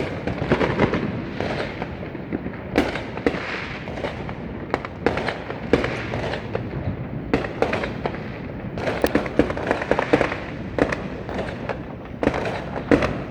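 Fireworks and firecrackers going off all around: many sharp cracks and bangs at irregular intervals, some in quick clusters, over a constant crackle.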